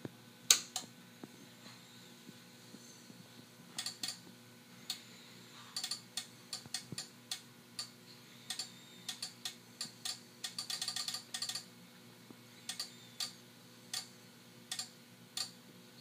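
Irregular sharp clicks, some single and some in quick runs, while the shaft of the position resolver feeding a programmable limit switch is turned by hand. The loudest click comes about half a second in, and a dense flurry comes around ten to eleven seconds in. A faint steady electrical hum runs underneath.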